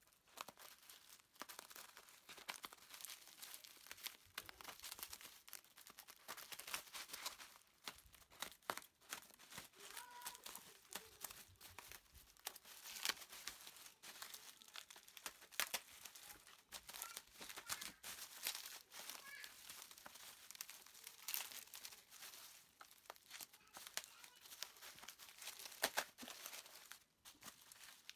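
Plastic bubble wrap faintly crinkling and crackling as it is cut and unfolded by hand, in irregular small crackles.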